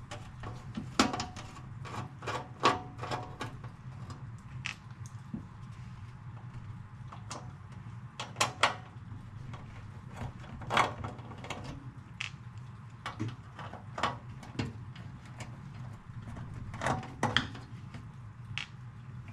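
Irregular clicks and knocks of a screwdriver and hands working screws out of an old stereo unit's casing during disassembly, over a steady low hum.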